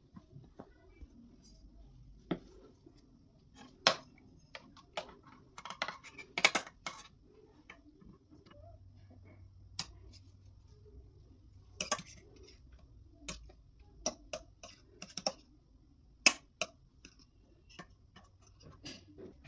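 Kitchen work: irregular sharp clinks and knocks of utensils against dishes and pans, about twenty separate taps.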